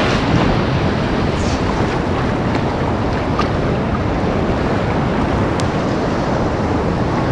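Strong wind buffeting the microphone over the steady rush and slosh of shallow sea water surging around a wader's legs.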